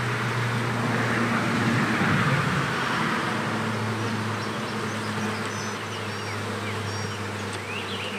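Honeybees from an opened nucleus colony humming steadily as a bee-covered frame is moved into the hive. A rushing noise swells and fades over the first three seconds, and faint bird chirps come and go.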